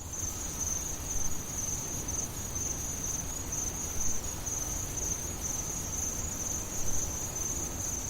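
Insects, crickets by the sound, chirring in a steady high trill over a low rumble.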